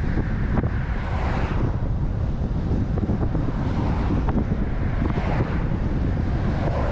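Heavy wind buffeting a GoPro's microphone on a fast road-bike descent: a steady low rumble with hiss above it that swells twice.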